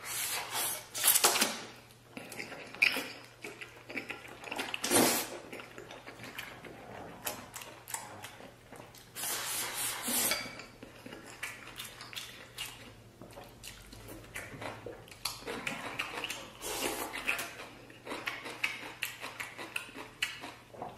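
Wooden chopsticks clicking and scraping against a ceramic bowl held to the mouth while food is shoveled in. Several loud eating bursts come about a second in, around five seconds and around ten seconds, with smaller clicks and chewing sounds between them.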